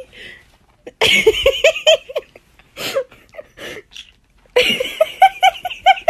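Bursts of laughter, quick runs of 'ha-ha' pulses, about a second in, again briefly in the middle, and hardest near the end.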